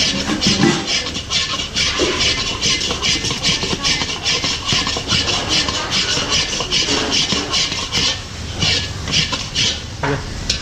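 Spatula scraping and stirring cornflour halwa mixture in a pan, in steady rhythmic strokes about three a second.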